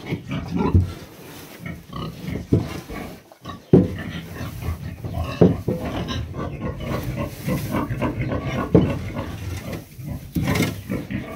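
Sow close to farrowing grunting repeatedly in short, low grunts, a few of them sharper and louder.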